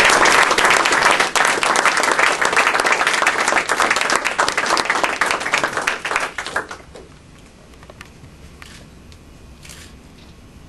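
Audience applauding, a dense clatter of many hands that fades out about seven seconds in, leaving a few faint scattered clicks.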